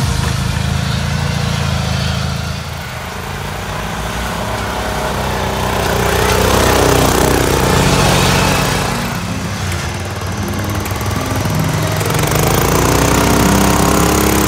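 Small engines of lifted off-road riding mowers running and revving under load as they drive through rough ground and snow. The engine note rises and falls, loudest around the middle and near the end.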